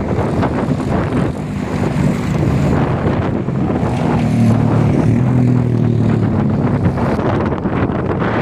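Wind buffeting the microphone, with a motor engine droning steadily beneath it from about a second in until near the end.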